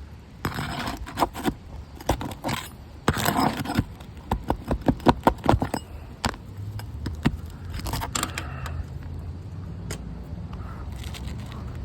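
Metal tool clicking and scraping against a roof shingle while working a nail loose, with a quick run of sharp clicks about five seconds in. It then goes quieter under a low steady rumble.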